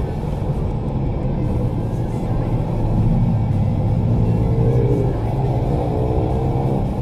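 Mini dirt bike heard from on board while riding, running under throttle with a steady low rumble. Its pitch rises and falls as the throttle is worked through the corners, most clearly about four to five seconds in.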